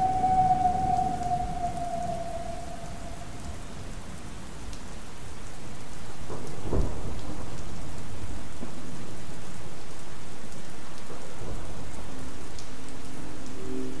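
A synthesized distant train whistle holds one slightly falling note and fades out in the first few seconds over steady rain. The rain grows louder, a thunderclap strikes about seven seconds in, and near the end a synthesized train horn sounds a low chord of several notes.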